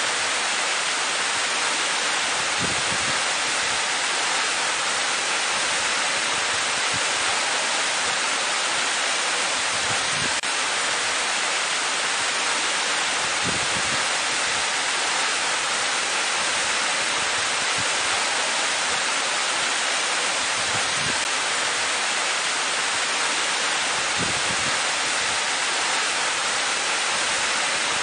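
Tall waterfall pouring into a rock pool: a steady, even rush of falling water that holds the same level throughout.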